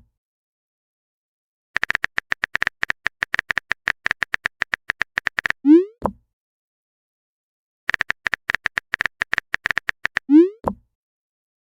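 Quick runs of phone-keyboard typing clicks, each run ending in a short rising 'pop' message-sent sound with a soft thump; this happens twice.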